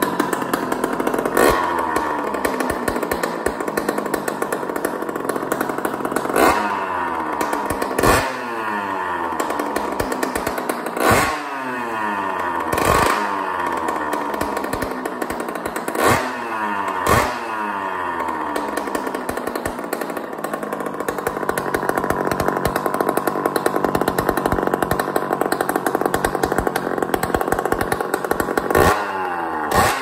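Honda CR80's two-stroke single-cylinder engine running with its expansion chamber pipe removed, blipped about eight times, the revs rising sharply and sinking back each time. With the pipe off there is no knocking or rattle, pointing to the loose pipe as the cause of the knock.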